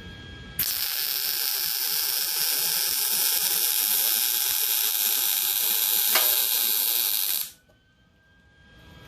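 Electric welding arc running a bead on steel: a steady, loud hiss that starts suddenly about half a second in and cuts off abruptly about seven seconds later.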